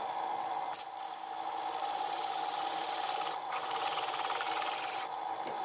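Drill press running with a circle cutter scraping a round groove into clear acrylic sheet: a steady motor hum under a rasping cutting hiss that eases off near the end.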